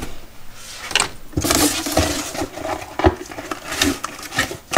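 Cardboard box and packaging being handled and pulled open: irregular crackling, rustling and knocking, starting about a second in.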